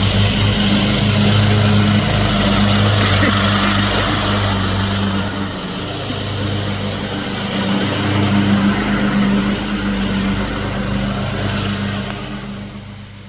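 Riding lawn mower's small engine running steadily, dipping briefly and swelling again midway, then fading away near the end.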